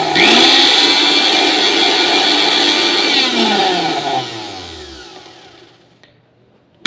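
1200-watt Rico Typhoon blender motor running at full speed. About three seconds in it is switched off and spins down, its pitch falling away over about two seconds to a stop.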